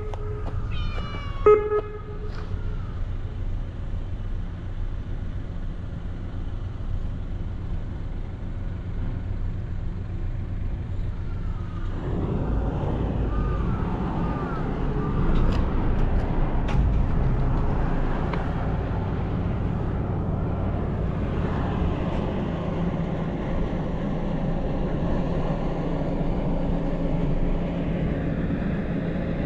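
A calico cat meows once, loudly, about a second and a half in. About twelve seconds in, a steady low rumble rises and holds.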